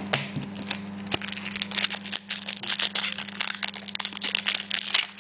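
Foil trading-card pack wrapper crinkling with dense, irregular crackles as it is handled and torn open by hand.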